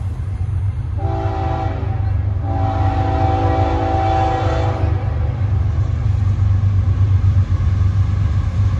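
CSX diesel locomotive's multi-chime air horn sounding one short blast and then one long blast, over the steady low rumble of the passing train.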